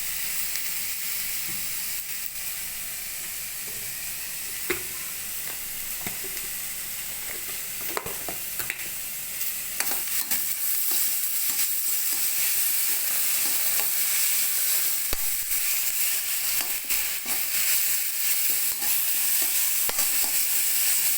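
Potatoes, tomatoes and spices frying in oil in a kadhai: a steady sizzle, with a spatula stirring and clicking against the pan now and then. The sizzle grows louder about ten seconds in.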